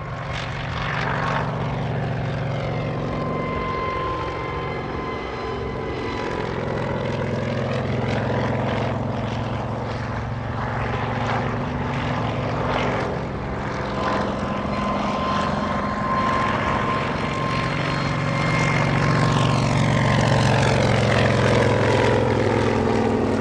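Kamov Ka-26 helicopter flying low: its two radial piston engines and coaxial rotors make a steady drone with a whining tone over it. The sound sweeps and shifts as it passes and turns close by, and it grows louder near the end.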